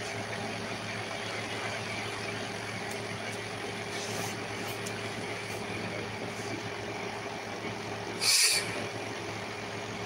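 Steady background hum with a few fixed low tones, broken once, about eight seconds in, by a short burst of hiss.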